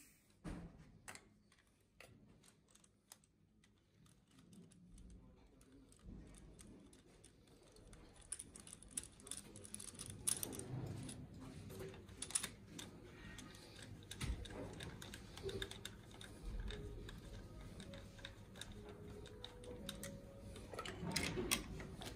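Faint clicks, taps and rustling of gloved hands handling a compression tester's hose and threaded adapter on a diesel cylinder head, moving it to the next cylinder. Nearly silent at first, the small clicks grow more frequent, with a busier cluster near the end.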